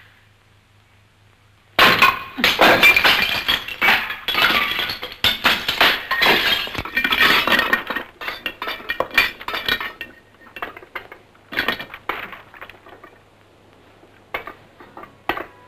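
A sudden crash about two seconds in, followed by several seconds of clay roof tiles breaking, clinking and clattering. The clatter thins out to scattered clinks, with a couple of last sharp knocks near the end.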